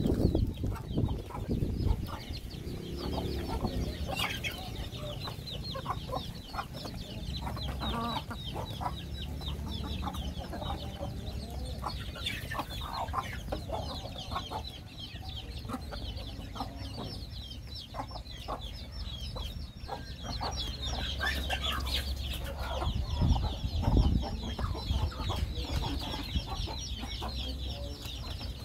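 A flock of hens and chicks: adults clucking under a continuous stream of rapid, high-pitched chick peeps.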